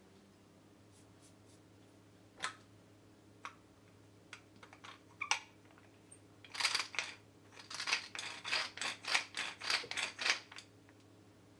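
Chia seeds shaken out of a container into a glass bowl of fruit vinegar: a rapid run of rattling shakes, about four a second, for about four seconds from roughly halfway through, after a few light clicks and rustles of handling.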